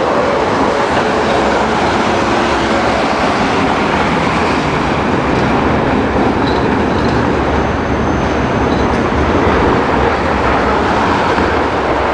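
Street trams running on their rails close by: a steady rolling noise of steel wheels on the track.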